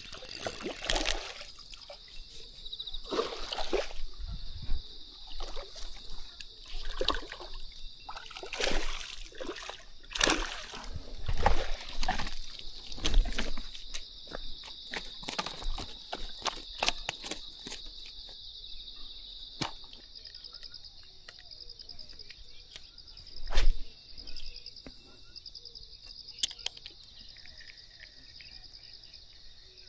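A freshly landed fish flopping and thrashing on bare dirt while being handled, heard as a string of sudden slaps, knocks and rustles over the first half, with one loud knock about two-thirds through. A steady high insect chirr runs underneath.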